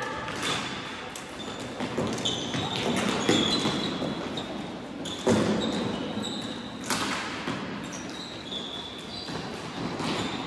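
Floorball game sounds echoing in a large sports hall: sharp knocks of sticks, the plastic ball and the rink boards, with short high squeaks of indoor shoes on the court. The loudest knocks come about half a second in, around five seconds in and near seven seconds. Players' calls mix in faintly.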